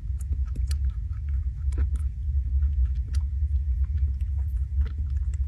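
Rabbit chewing a piece of juicy red fruit: a scatter of small, quick, crisp clicks and crunches, over a steady low rumble.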